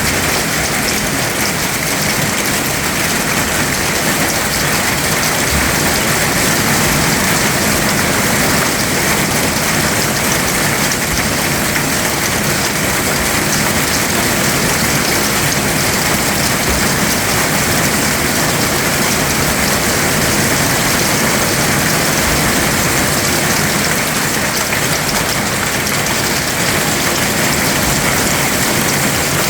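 Heavy rain coming down in a steady, dense downpour.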